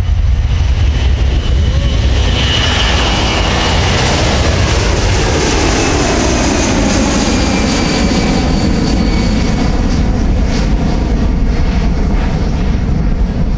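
Boeing C-17 Globemaster III's four Pratt & Whitney F117 turbofans at high power as the transport lifts off and climbs past close by: a loud, steady jet roar with a thin high whine, the sound sweeping down in pitch around the middle as the aircraft goes by.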